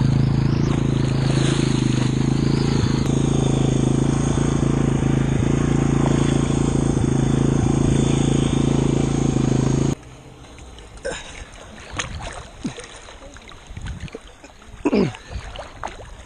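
1987 Honda FourTrax 250's single-cylinder four-stroke engine running steadily at an even pitch while its tires churn the water, paddling the floating ATV along. About ten seconds in the engine sound cuts off suddenly, leaving soft water lapping and small splashes.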